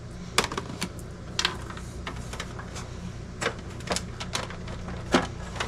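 Scattered light clicks and knocks of hard plastic as a dehumidifier's plastic filter is set down and its plastic cabinet is gripped and turned, about a dozen sharp taps over a steady low hum.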